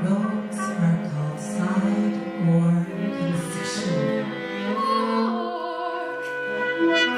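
Small chamber ensemble playing contemporary concert music, bowed strings prominent in sustained, overlapping low notes, with short hissing touches high above at intervals.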